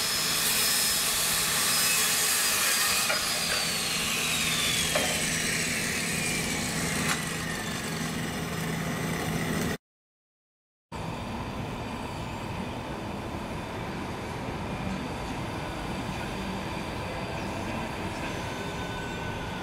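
Table saw running at speed, then switched off: its whine holds for about three seconds, then falls steadily in pitch over about five seconds as the blade spins down. After a brief break comes a steadier, quieter background hum.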